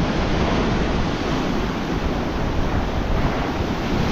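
Sea surf washing steadily, with wind blowing across the microphone and buffeting it.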